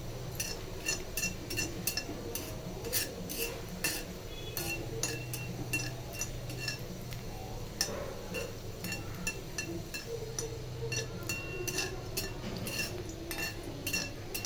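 A metal spoon stirring and scraping in metal cookware, clinking against the side many times at an uneven pace. Each strike rings briefly, over a low steady hum.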